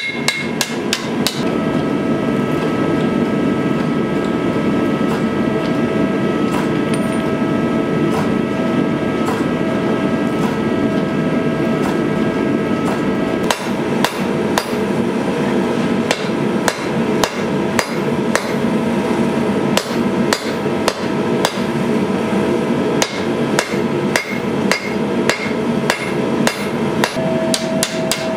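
Hand hammer striking a red-hot longsword blade on an anvil, with a ringing tone hanging on between blows. A few quick blows come at the start and only scattered ones for several seconds, then from about halfway a steady run of about two to three blows a second. A steady rushing noise runs underneath.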